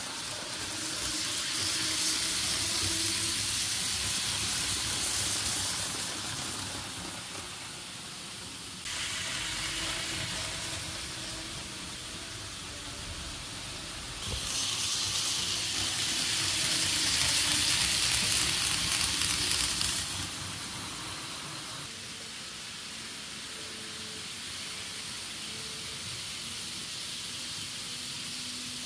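N-gauge model trains running on the layout's track: a steady rushing hiss of small wheels on rails and motors, with faint low hums. It swells for several seconds twice as trains pass close and changes level abruptly a few times.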